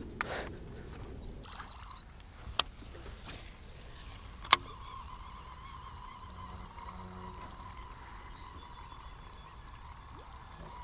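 Steady, high-pitched chirring of insects, with a few sharp clicks in the first half and a second, lower steady tone that joins about four and a half seconds in.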